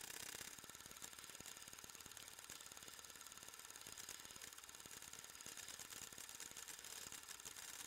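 Faint, rapid, even clicking of a running film mechanism over a steady hiss.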